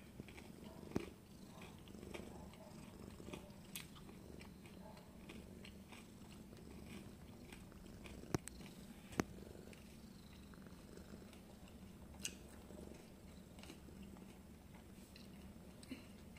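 Mother cat purring, a faint steady low rumble, while her newborn kittens nurse. A few sharp clicks stand out, the loudest two about a second apart near the middle.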